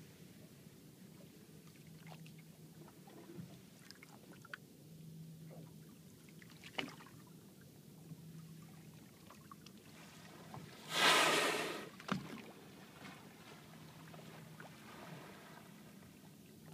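A fin whale's blow: one loud, rushing exhalation about a second long, roughly two-thirds of the way through, against a quiet background with a faint low hum.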